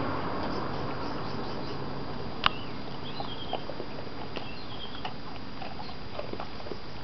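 A dog crunching dry dog biscuits: scattered, irregular crunches and clicks over a steady hiss, with one sharper click about two and a half seconds in.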